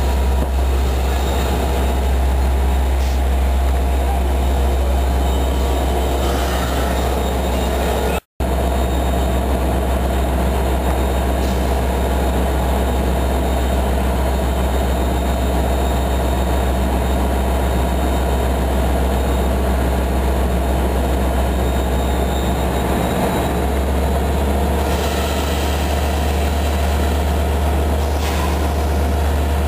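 Long Island Rail Road C3 bilevel passenger coaches rolling past the platform, a loud steady low rumble with a brief dropout about eight seconds in.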